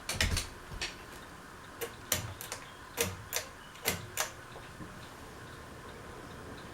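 Sharp clicks from a ceiling fan's speed switch being worked, three quick pairs about a second apart, to put the fan on high; after that the fan runs with a faint steady sound.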